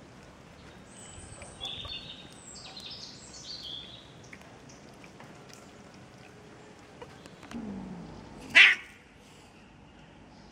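A cat eating fish scraps, with faint chewing clicks, while birds chirp high in the background for a few seconds near the start. About eight and a half seconds in comes one short, loud animal call.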